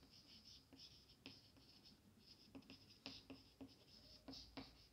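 Chalk writing on a chalkboard: faint, irregular short scratches and taps as each letter is stroked out.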